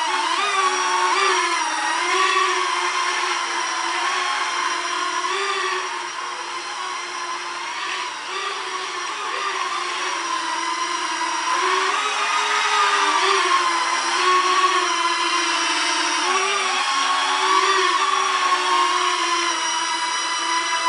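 Small quadcopter drone's electric motors and propellers whining, the pitch wavering up and down as the throttle changes in flight.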